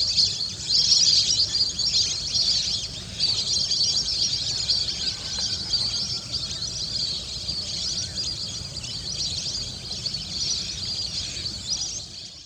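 Many birds calling and chirping together in a dense, continuous chorus that fades out at the very end.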